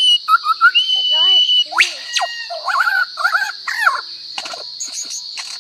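Lyrebird singing a rapid medley of mimicked calls: clear whistles, up-and-down pitch glides and quick warbled phrases, one after another, over a steady high hiss.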